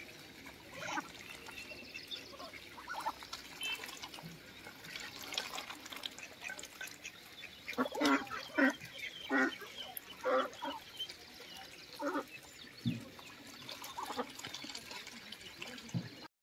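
Ducks quacking in short, separate calls, with a run of louder quacks about eight to ten seconds in.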